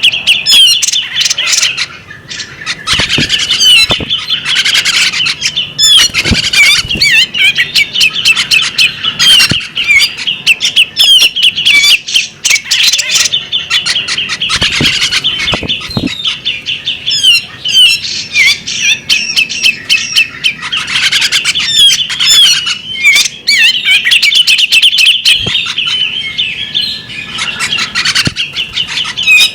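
Female magpie robin singing a long, continuous song of rapid chirps, warbles and sharp notes.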